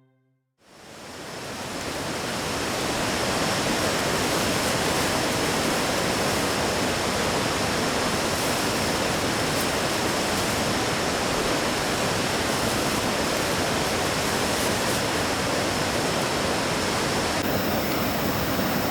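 Mountain stream water rushing steadily, fading in over the first few seconds.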